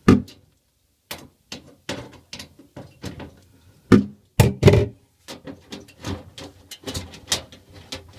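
Irregular clicks and knocks of a hand tool working a screw out of a freezer's bottom panel, with a few louder knocks near the middle.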